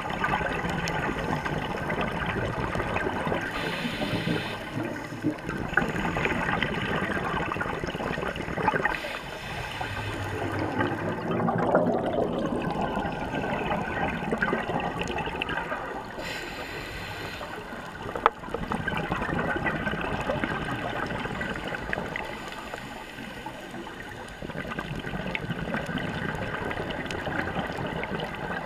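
Scuba divers' exhaled bubbles gurgling and regulator breathing, heard through an underwater camera housing. It comes in surges a few seconds long with quieter pauses between breaths, and there is one sharp click about two-thirds of the way through.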